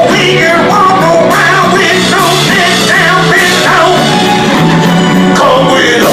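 Band music with a singing voice over a steady, repeating bass line, in a rock-and-roll style.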